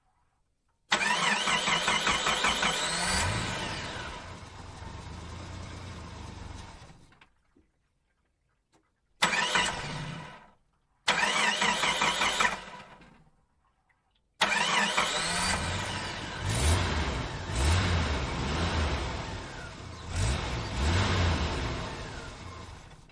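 A car engine started four times over. Each time the starter whirrs briefly, the engine catches and runs, then fades out. The last and longest run has the engine revved several times.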